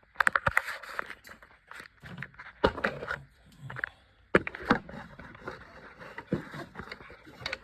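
Irregular clicks, knocks and scrapes of things being handled and fitted together, with a few sharper knocks about a third of a second, two and a half seconds and four and a half seconds in.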